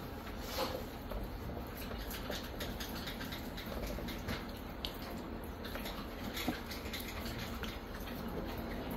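Pastry brush dabbing melted garlic butter onto baked biscuits and dipping into a glass measuring cup: faint, scattered soft scratching and tapping over a low steady hum.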